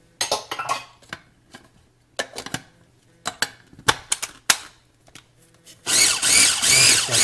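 Scattered clicks and knocks of the food processor being handled, then about six seconds in the food processor's motor starts and runs loudly, blending a thick pesto of scallions, basil and olive oil.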